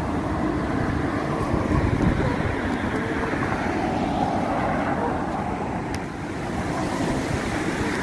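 Steady outdoor background rumble: road traffic noise mixed with wind buffeting the microphone.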